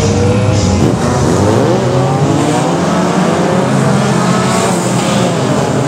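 A pack of battered old race cars at full throttle, many engines revving together. Several engine notes rise and fall over one another as the cars accelerate and lift round the bend.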